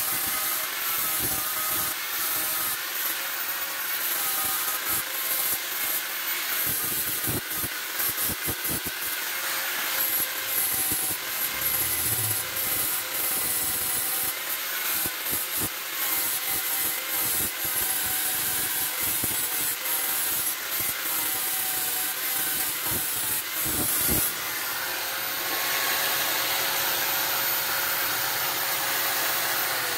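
Electric angle grinder with an abrasive disc grinding a metal rod: a steady grind with the motor's whine underneath, and a few sharp knocks around seven to nine seconds in and again at about twenty-four seconds. After that the grinder runs free on one steady tone, and at the very end its pitch falls as it spins down.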